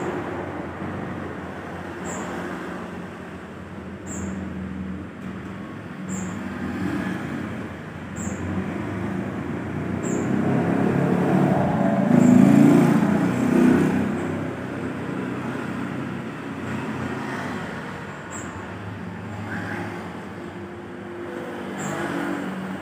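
Road traffic going past, a steady rumble that swells as a louder vehicle passes about halfway through. A faint short high chirp repeats about every two seconds.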